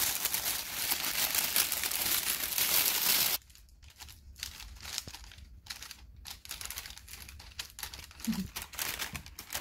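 Thin plastic carrier bag crinkling loudly as it is handled, for about the first three and a half seconds. Then it drops to quieter, broken rustling with small clicks as the bag's knotted handles are cut with scissors.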